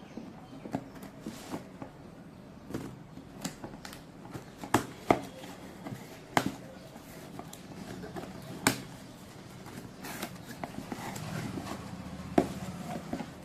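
Packaging being handled by hand: a dozen or so irregular clicks and taps, with a stretch of rustling near the end.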